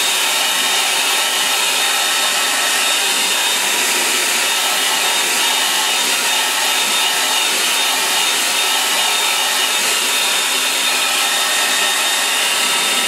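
Handheld hair dryer blowing steadily, drying wet watercolour paint: an even rush of air with a thin high whine held through.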